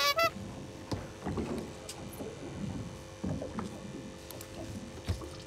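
Small fishing boat at sea: water lapping against the hull, with light knocks and a faint steady hum. It opens with a short falling electronic chime.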